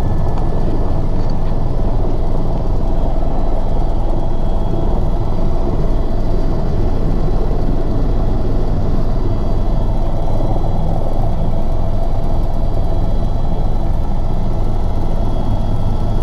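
Eurocopter EC130 (EcoStar) helicopter's turbine engine and main rotor running, heard from inside the cabin. It is a loud, steady drone with a thin, steady whine above it.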